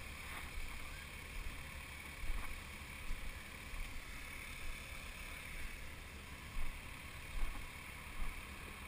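Steady low drone of diesel excavators working on a muddy construction site, with soft irregular thuds of boots stepping through wet mud.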